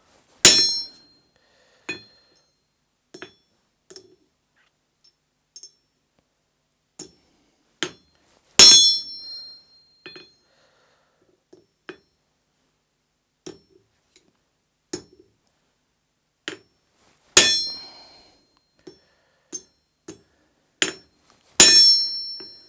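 Hammer blows on steel, four loud ringing strikes spaced several seconds apart, with lighter metallic taps and clinks in between.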